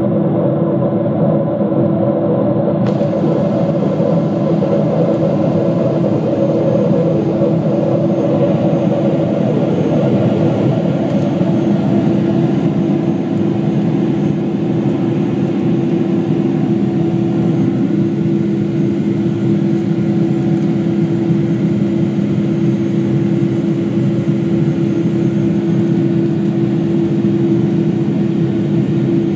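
Boeing 777 twin turbofan engines and airflow heard as a loud, steady drone inside the passenger cabin, with a constant low hum.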